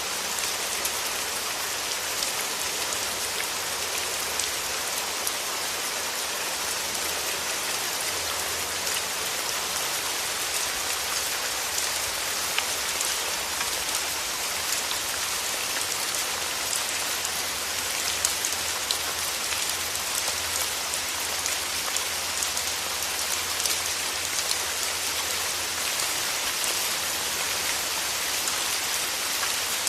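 Steady rain falling, an even hiss of many small drops with fine, crisp drop ticks and a faint low hum underneath.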